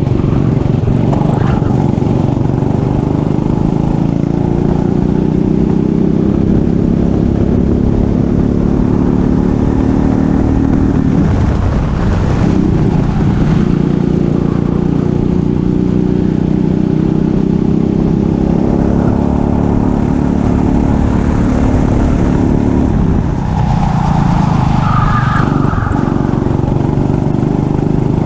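Racing kart engine running hard at high revs, with the engine note dropping briefly twice, as when lifting for a corner, and picking up again.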